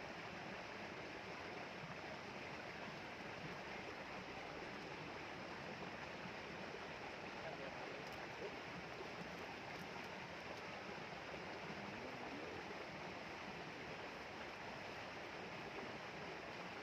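Steady, even rushing background noise with no distinct events, of the kind flowing water makes.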